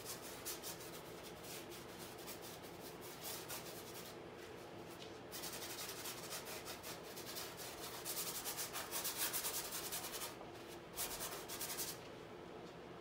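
Paintbrush scrubbing paint back and forth across a stretched canvas as the colours are mixed directly on the surface. It makes a dry, scratchy rasp in quick strokes, with two brief pauses. The strokes stop about a second before the end.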